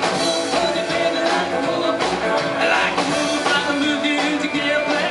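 Live bluesabilly band playing: strummed acoustic guitar and upright double bass with a steady beat, and a harmonica blown through a microphone cupped in the hands, its wavering notes over the band.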